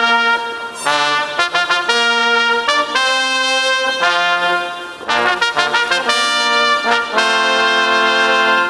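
Brass ensemble led by trumpets playing music of held notes and chords that change about once a second, with a short break about five seconds in.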